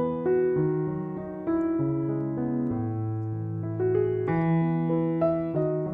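Background music: a piano piece of held notes that change about every half second to a second.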